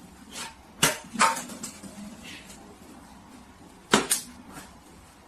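A few short sharp knocks or clicks against a quiet room background: two about a second in and two more about four seconds in.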